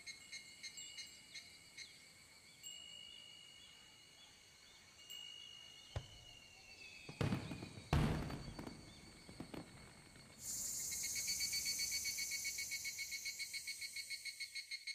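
Insects chirping in an even, rapid pulsing rhythm, with two heavy fireworks booms about seven and eight seconds in. About ten seconds in, a louder, hissing chorus of insects sets in.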